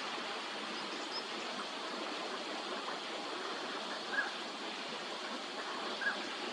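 Two short whistled calls, about four and six seconds in, from northern pintail drakes, over a steady rushing background noise.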